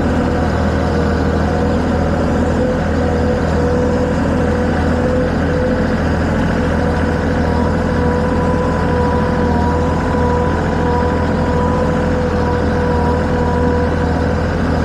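Engine of a heavy vehicle running steadily, with a steady whine over it and a higher tone joining about halfway through.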